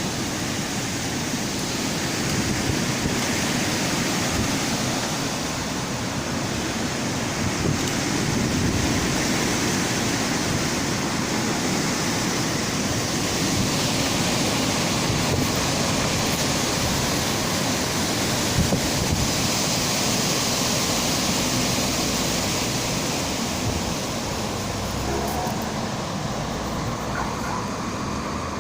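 Strong wind blowing, a loud steady rushing noise that swells and eases slowly, with a low rumble of wind buffeting the microphone.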